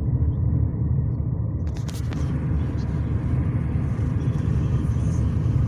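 Steady low rumble, with a couple of sharp clicks about two seconds in.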